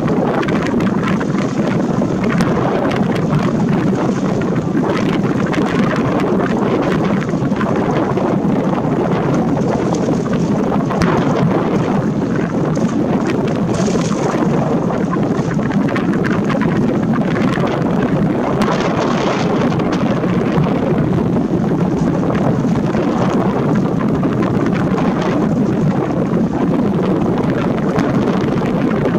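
Wind buffeting a Nikon camera's built-in microphone that has no foam windscreen: a loud, steady, low rushing noise with no letup.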